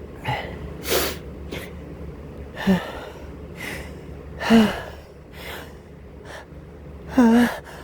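A man's sneeze build-up brought on by pollen: a run of short, catching gasps, some pitched and rising, the loudest about halfway through and near the end, as a sneeze threatens. A steady low hum runs underneath.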